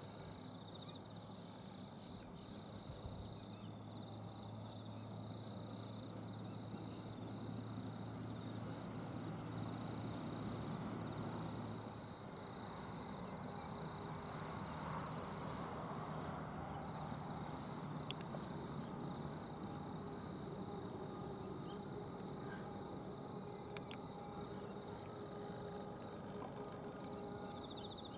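Outdoor ambience of insects: a steady high-pitched whine with many short, high ticks scattered throughout, over a low hum that stops about twelve seconds in.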